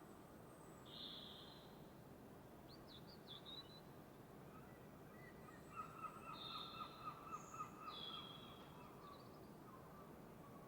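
Several wild birds calling at dawn: short high chirps and whistles, then a rapid pulsed trill in the middle, over a faint steady background hiss.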